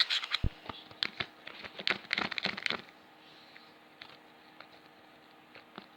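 Slime being squished and poked by hand, making quick sticky clicks and small pops for about three seconds before it goes much quieter with a few faint ticks.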